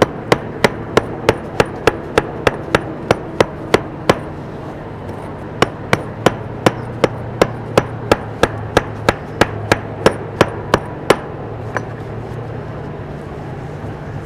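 Hammer blows struck in a steady rhythm, about three a second, in two runs with a short pause about four seconds in; they stop about eleven seconds in, leaving a low steady hum.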